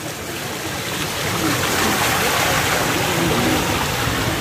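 Floodwater rushing and splashing as a scooter's wheels cut through shallow standing water, the wash building over the first couple of seconds and then holding steady.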